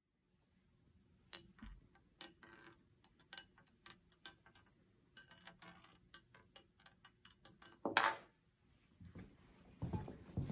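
A strong magnet falling slowly down an aluminium tube, held back by the eddy currents induced in the tube, ticking irregularly against the tube wall as it goes. A louder knock comes about eight seconds in.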